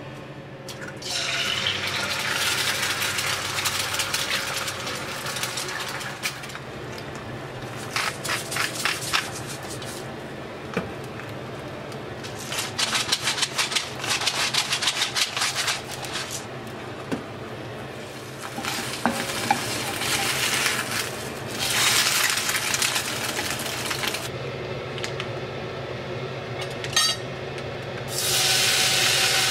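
Egg, and near the end slices of ham, sizzling in hot oil in a stainless steel frying pan, the sizzle coming and going. In between come runs of rapid clicking from a pepper mill grinding over the egg.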